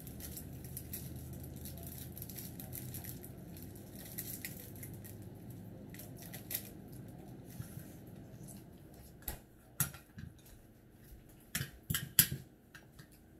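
Scattered light clicks and clinks of a spoon and fork against plates and a plastic bowl at a dining table, with a few sharper taps in the last few seconds, over a low steady room hum.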